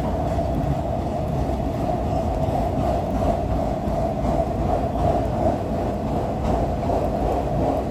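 Freight train of empty autorack cars rolling past slowly, a steady rumble of wheels on the rails.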